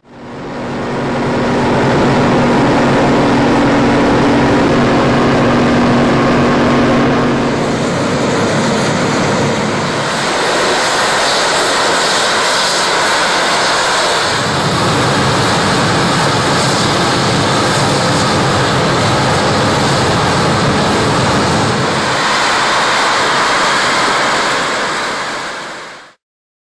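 Loud, continuous rumbling drone of the kind circulated as the worldwide 'strange sounds' in the sky. A steady low hum runs through the first several seconds, then the sound turns into a hissier rushing noise that swells and shifts, and it fades out near the end.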